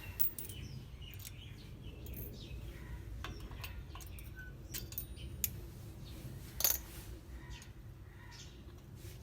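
Scattered light metallic clicks and clinks of small brake parts and washers being handled and fitted by hand, with one louder clink about six and a half seconds in.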